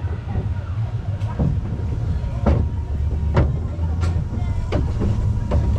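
Zierer Force Two roller coaster train running on its steel track, heard from the last car. The wheels give a steady low rumble, with sharp clacks and rattles about once a second.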